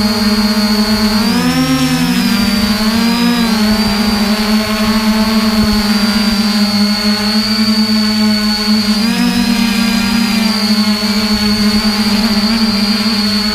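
Quadcopter drone's electric motors and propellers humming steadily, picked up close by the camera on the drone. The pitch wavers and splits briefly about one and a half seconds in and again about nine seconds in, as the motors change speed to manoeuvre.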